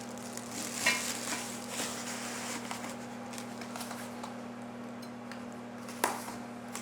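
A few light clicks and knocks from handling the metal pieces of a fireplace tool set, over a steady low hum.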